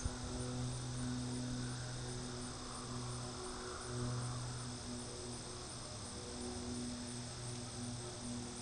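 Crickets trilling steadily, with a low hum that swells and fades underneath.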